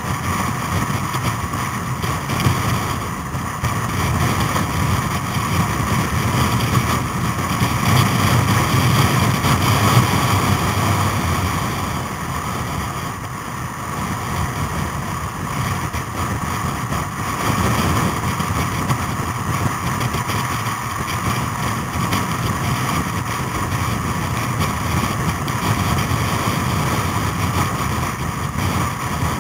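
Motorcycle engine running steadily at road speed, mixed with wind rushing over the microphone.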